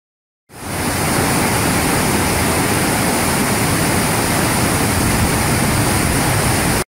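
Marmore Falls' steady roar of falling water. The roar fades in quickly about half a second in and cuts off abruptly near the end.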